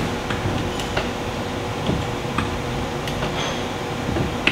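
Torque wrench ratchet with a 17 mm socket clicking in short, uneven strokes as bolts on an engine's motor plate are tightened to torque.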